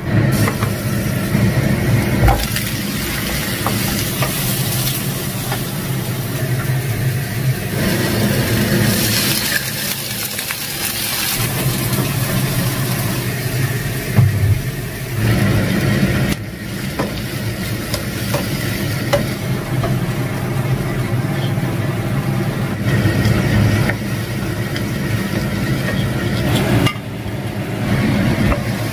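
Food frying in a wok, with sizzling oil and a wooden spatula stirring chunks of luffa, over a steady low hum.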